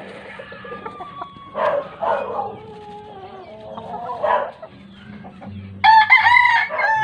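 Gamefowl roosters crowing and clucking, with the loudest crow near the end.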